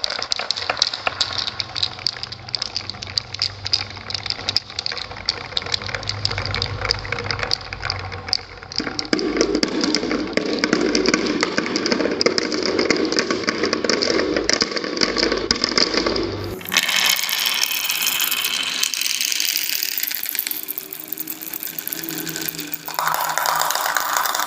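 Marbles rolling and clattering along a marble run track: a steady rattle of many quick clicks with a low rumble. About two-thirds of the way through, the sound cuts abruptly to a different, brighter clatter.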